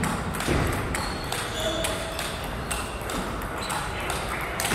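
Table tennis ball clicking off paddles and the table in a rally, a sharp tap every half second or so.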